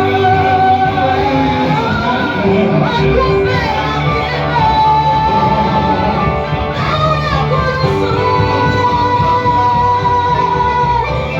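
Church worship music: voices singing long held notes over instrumental accompaniment, in a large reverberant hall.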